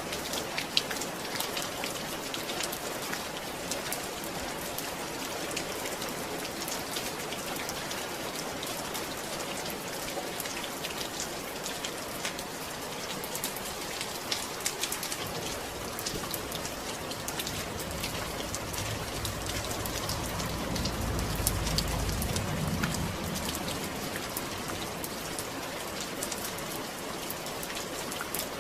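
Steady rain falling, with many small drops pattering on a surface. A low rumble swells and fades about twenty seconds in.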